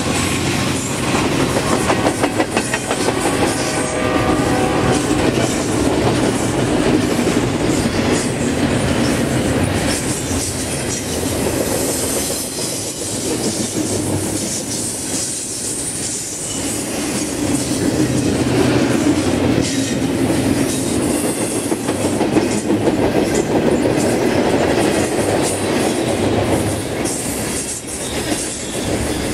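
Loaded double-stack container well cars rolling past: a steady rumble of steel wheels on rail, with rapid clickety-clack over the rail joints.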